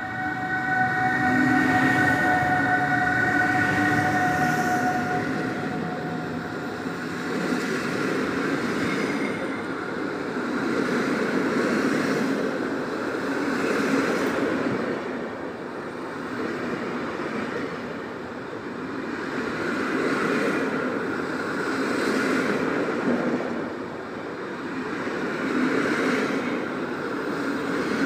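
Intercity train hauled by an EU160 electric locomotive pulling out of the station: a steady multi-tone whine in the first five seconds, then the coaches rolling past, their wheel noise swelling and fading every couple of seconds.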